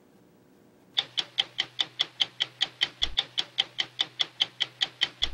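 Stopwatch ticking at a steady pace of about five ticks a second, starting about a second in, over a faint low hum.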